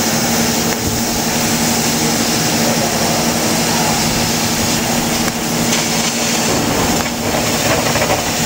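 1000 W laser die-cutting machine running as its head cuts a plywood die board: a steady mechanical hum with an even hiss of air over it.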